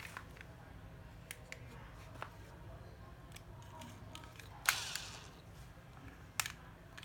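Small plastic clicks and knocks from a National 7.2 V cordless drill being handled, with a louder click and brief rattle a little under five seconds in and another sharp click about a second and a half later.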